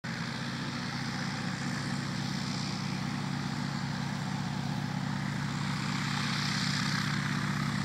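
Waco YKS-6 biplane's Jacobs seven-cylinder radial engine and propeller running steadily, heard from down the airstrip and slowly growing louder.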